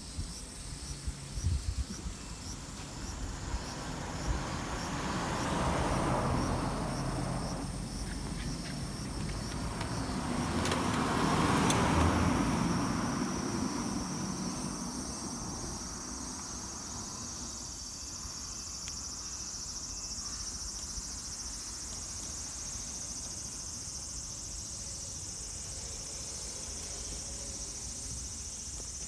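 Two road vehicles passing, one about six seconds in and a louder one about twelve seconds in, each rising and fading away. Insects chirp steadily throughout, becoming an unbroken high drone in the second half.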